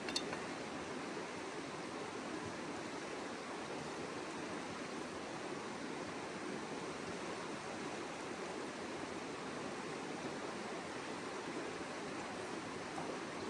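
Mountain stream water rushing steadily. There is a brief click right at the start.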